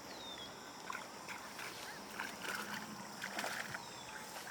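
A hooked small yellow perch being reeled in, with irregular short splashes and clicks that grow busier in the second half.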